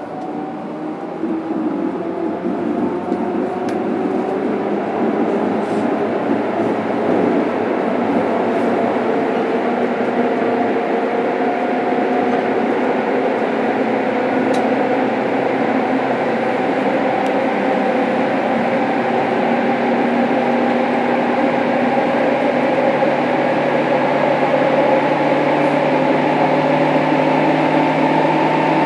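JR Kyushu 103 series 1500 electric train's traction motors and gearing whining under running noise, heard from inside the motor car as the train accelerates. The whine rises slowly in pitch.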